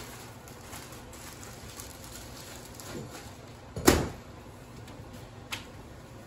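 A single sharp knock about four seconds in, the loudest sound, with a fainter click near the end, over a quiet kitchen background.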